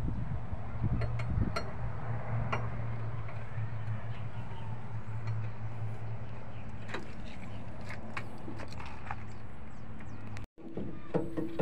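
Scattered light clicks and clinks of hand work on metal fittings while an old battery is being taken out of a machine's battery compartment, over a steady low hum. Near the end the sound cuts out briefly and comes back with a different steady tone.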